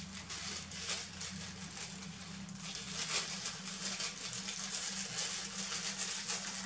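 Rustling and small irregular clicks of fishing tackle being handled while a soft-plastic lure is rigged on a long hook, over a low steady hum that drops away about halfway through.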